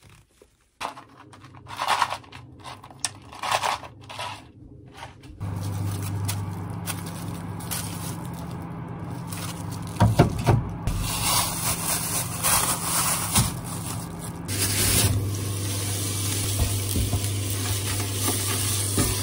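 A few short handling knocks and rustles, then a steady low hum. About halfway through, thin-sliced raw meat starts sizzling as it fries in a pan, with the scrape and click of the utensil stirring it.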